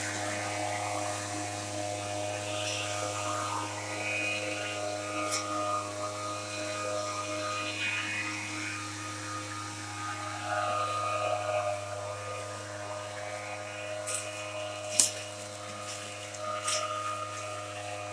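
Small engine of a motorized long-range sprayer running at a steady speed. Irregular rustling of dry leaf litter underfoot is mixed in, with a few sharp clicks and one louder snap about 15 seconds in.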